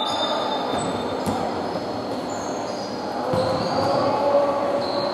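Basketball shoes squeaking on a wooden court floor: several short, high squeals over a steady background murmur of the hall.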